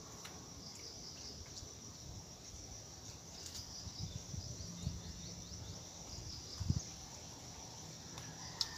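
Insects chirring steadily in a high-pitched chorus, with a few soft low thumps, the clearest about two-thirds of the way through.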